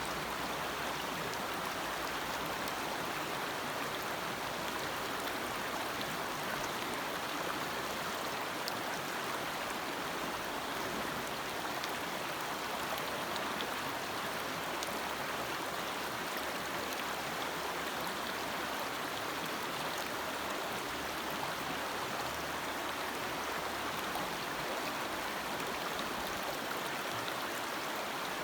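Forest stream flowing over stones: a steady, even rush of water with faint fine splashing, unchanging throughout.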